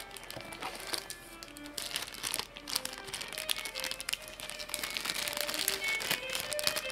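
Clear plastic bags crinkling and rustling as wrapped parts are handled and lifted out of a cardboard box, in irregular bursts of crackle, over background music.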